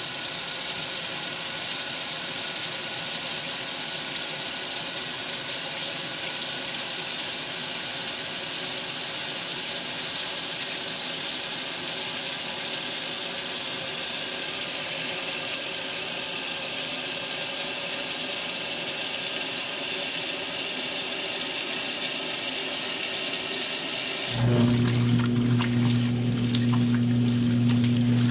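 A 1962 RCA Whirlpool LJA70 washing machine filling: water rushes steadily into the tub. About 24 seconds in, the machine's motor starts with a steady low hum and the sound gets louder, while the water keeps running.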